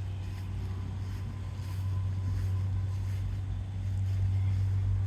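Steady low machine hum, with light wind noise on the microphone; it gets louder about two seconds in and again near four seconds.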